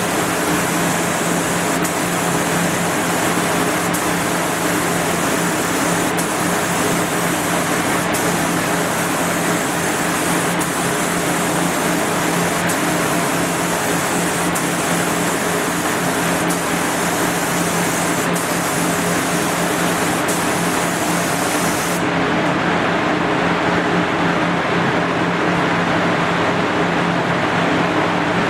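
Gravity-feed spray gun hissing as it sprays paint, over a steady fan-like hum. The high part of the hiss drops away abruptly about three-quarters of the way through.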